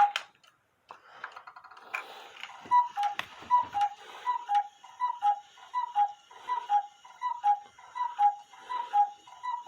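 Chalet cuckoo clock calling its two-note cuckoo, a higher note then a lower one, about a dozen times in quick succession from a little under three seconds in, over its light ticking.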